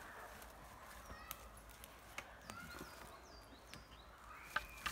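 Two dogs moving through leaf litter and twigs: soft rustling with a few scattered sharp light cracks of twigs.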